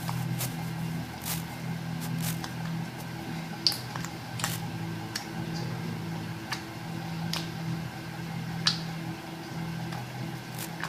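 Fluffy slime being handled, with scattered sharp clicks and pops, two of them louder, over a steady low hum.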